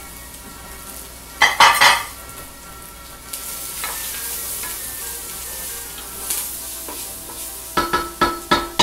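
Onions and mushrooms sizzling in a hot stainless steel skillet while a spoon stirs them, with a loud clatter of spoon against the ringing pan about a second and a half in. Near the end come four or five sharp knocks of a spoon against the steel pot.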